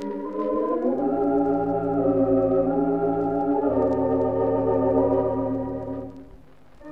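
Wurlitzer theatre pipe organ on an early recording, playing held chords. The whole chord slides upward into pitch about a second in, the bass shifts partway through, and the sound fades away near the end.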